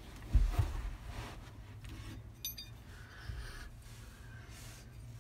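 Quiet handling of a metal Hi-Lift jack bed-mount bracket as it is slid into the bed rail track of a 2019 Toyota Tundra. There is a low thump about half a second in, then faint rubbing and a few small clicks about halfway through.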